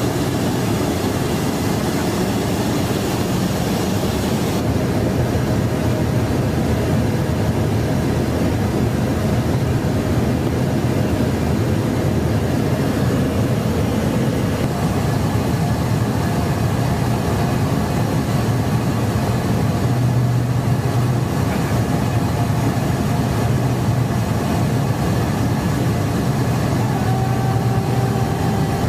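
Steady in-flight drone inside a KC-10 Extender tanker's boom operator compartment: engine and airflow noise with a low hum. The upper hiss eases slightly about four seconds in.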